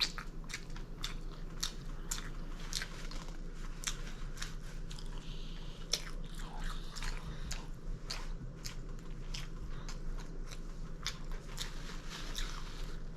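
A person chewing crunchy fried food close to the microphone: irregular crisp crunches, several a second, with wet chewing between them.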